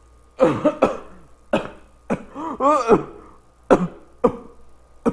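A man coughing and spluttering in a string of about seven sharp coughs, some with a short strained voice in them, choking on the sting of wasabi eaten without soy sauce.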